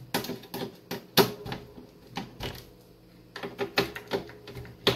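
Screwdriver tightening screws in a satellite receiver's metal chassis: a series of irregular small clicks and knocks, with two louder knocks about a second in and near the end.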